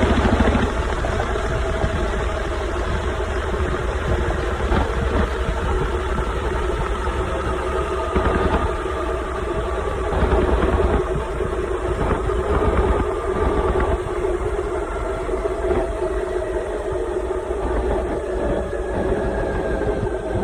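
Beko washing machine on its spin cycle, heard from inside the spinning drum: a steady motor whine over a heavy low rumble, its pitch sagging slowly.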